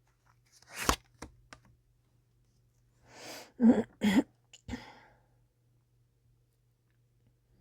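A sharp snap about a second in, followed by a few light clicks; then a quick breath in and a person coughing twice, with a smaller cough just after.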